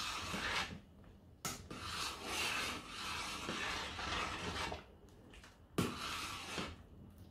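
Metal ladle stirring soup in a stainless-steel stockpot, scraping and swishing against the pot in three stretches with short pauses between. A sharp tap of the ladle on the pot starts the second and third stretches.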